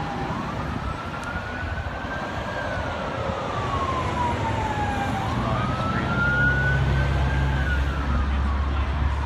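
An emergency vehicle siren in a slow wail, rising and falling about every five seconds. About halfway through, a low engine rumble grows louder beneath it.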